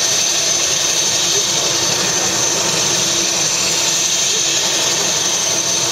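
Helicopter turbine engine and rotor running steadily on the landing pad: a constant high turbine whine over a steady rushing noise.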